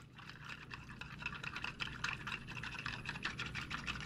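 A small wire whisk beating a thin brown gravy mixture of milk, melted butter and gravy powder in a plastic bowl: a fast run of light clicks of the wires against the bowl, with liquid swishing.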